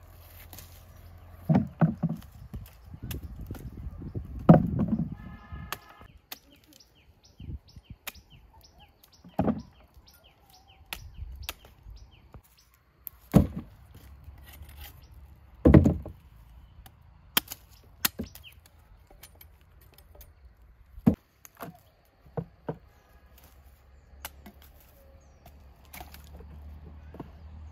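Irregular chopping knocks and thuds, a dozen or so sharp strikes spread out with pauses between them. Birds chirp faintly.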